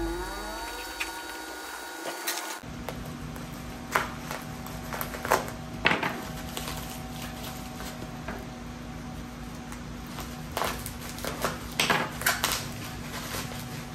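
Bubble-wrapped parcel handled on a tabletop: the plastic crinkles and crackles in short bursts, with a few knocks, over a steady low hum.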